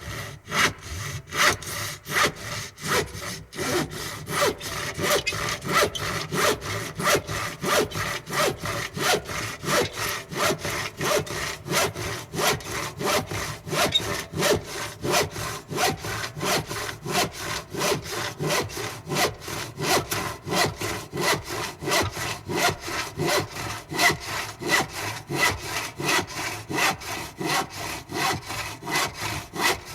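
Hand saw cutting through wood in quick, even back-and-forth strokes.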